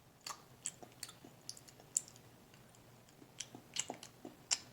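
A person chewing a piece of salty licorice: faint, scattered wet mouth clicks, the sharpest about two seconds in and near the end.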